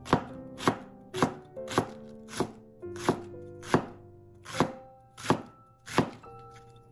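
Kitchen knife shredding red cabbage into fine strips on a wooden cutting board: about ten sharp, even chops, a little over half a second apart, stopping near the end.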